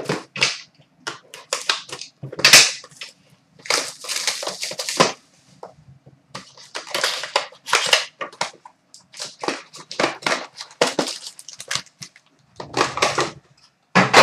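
A 2012-13 Panini Certified hockey hobby box being torn open by hand. The cardboard and the foil packs crackle and tear in a run of short, irregular bursts, loudest about two and a half seconds in.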